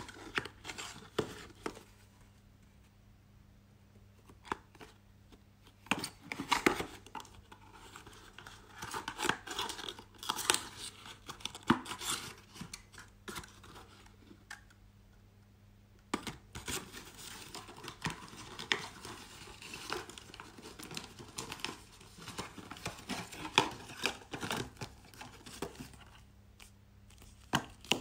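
Cardboard sunscreen carton being handled and opened by hand: flaps crinkling and scraping, with irregular clicks and light knocks on a wooden tabletop as the tube is slid out. A steady low hum runs underneath.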